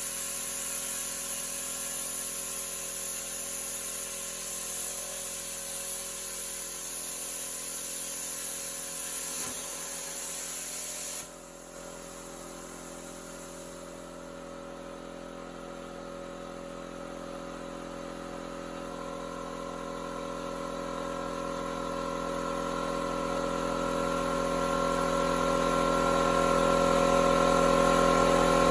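CNC plasma cutter's torch hissing steadily while cutting, then cutting off suddenly about a third of the way in. After that a steady machine hum of several held tones remains and slowly grows louder.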